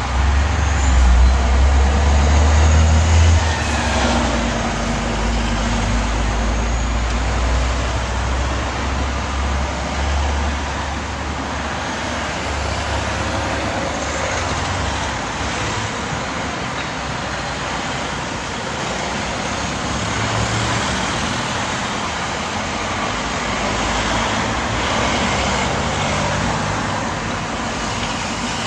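Road traffic passing along a street over a level crossing: cars and vans rolling by in a steady stream of tyre and engine noise. A close vehicle's deep engine rumble is loudest over the first few seconds and fades out by about ten seconds in.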